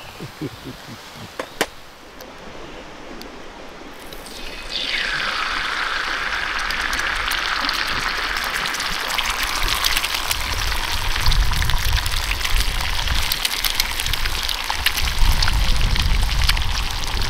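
Eggs poured onto a hot skillet over a wood fire: a sudden sizzle starts about four seconds in and carries on steadily as they fry. Low rumbling joins in the second half.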